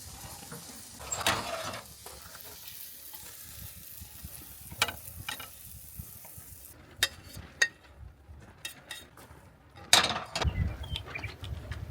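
Utensils clicking and scraping against pans and plates as a cooked meal is dished up, over a steady hiss that cuts off suddenly a little past halfway. A louder rustle or bump comes near the end.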